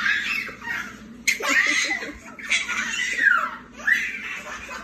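Baby laughing in repeated high-pitched bursts of giggles.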